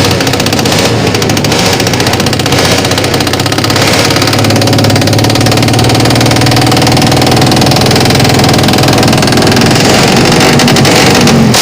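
Race-tuned Yamaha Jupiter MX motorcycle's single-cylinder four-stroke engine, bored out to 180cc, running loud. The revs waver for the first few seconds, then are held steady and slowly climb from about four seconds in.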